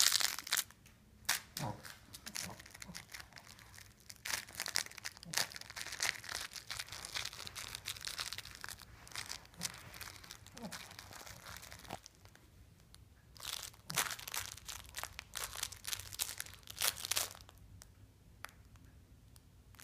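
Crinkle-paper toy crackling as a Shih Tzu chews and mouths it, in bursts of dense crackling with short pauses between them.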